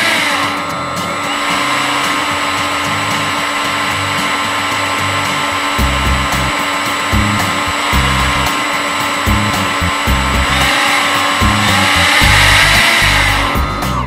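RC model Griffon 2000TD hovercraft's fans and motors running, a steady whine close to the onboard camera that dips and recovers in pitch a few times as the throttle changes. From about six seconds in, it is broken by uneven low rumbles.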